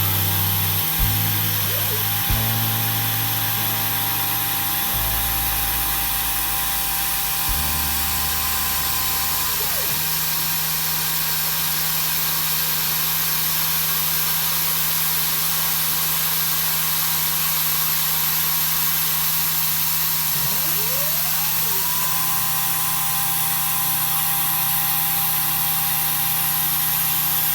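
A DIY CNC machine's spindle running at a steady high pitch over a constant hiss. It winds down about ten seconds in and spins back up to speed about twenty-one seconds in, during the finishing passes on an aluminium part.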